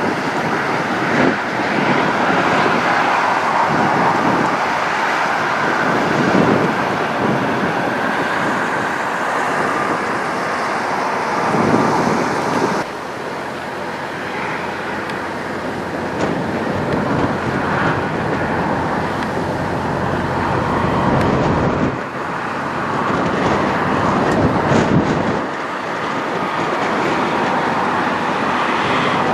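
Diesel semi trucks pulling trailers past at low speed, engines running with tyre noise on the pavement. The sound changes abruptly a few times where one clip cuts to the next.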